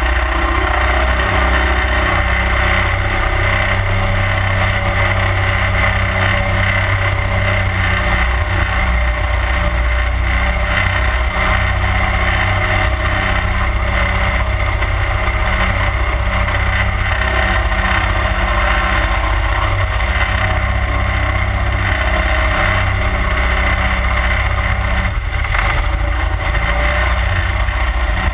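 31 hp Mud Buddy Hyperdrive surface-drive mud motor running steadily at cruising speed, pushing a flat-bottomed aluminium boat through the water.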